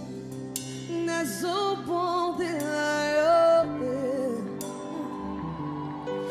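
A woman singing a Lingala gospel worship song, with live band accompaniment. Her melody bends and slides with vibrato, with a long held note about three seconds in.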